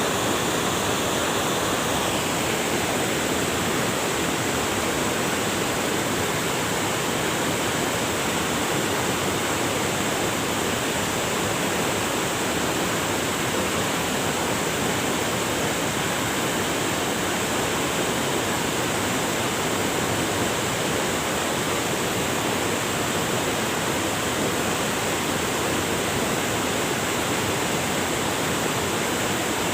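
River water rushing over rocks in a steady, even rush with no breaks.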